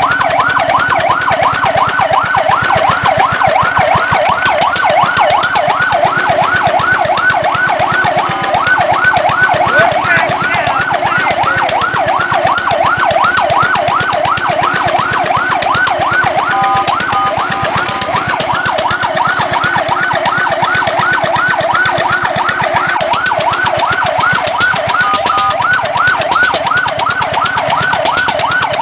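Fire truck siren sounding in a fast yelp, a rapid rising-and-falling wail at about three to four sweeps a second. Three times it briefly holds a steady tone before the yelp resumes.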